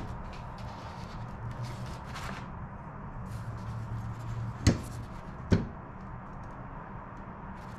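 Steel rules and a steel square being handled and slid over paper plans on a workbench, with light rustling and two sharp clicks about a second apart just past the middle as the metal is set down.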